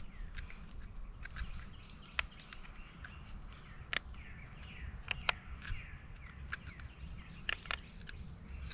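Small pocket knife blade cutting a notch into a wooden bow drill fireboard: faint, irregular sharp clicks and snicks of the blade in the wood. Faint birdsong chirps behind it.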